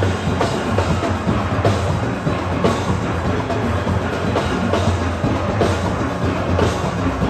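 A steel orchestra playing a soca arrangement live: massed steelpans over engine-room drums and percussion, with a steady beat.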